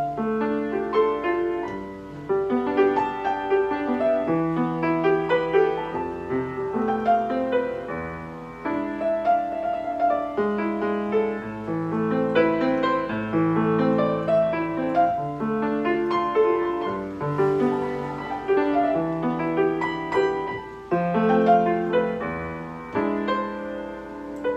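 Steinway piano playing a melody over held chords.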